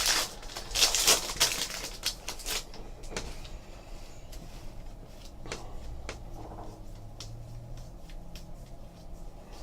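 Trading card packs being opened and handled: a dense crinkling rustle for the first couple of seconds, then scattered light clicks and taps as the cards are handled.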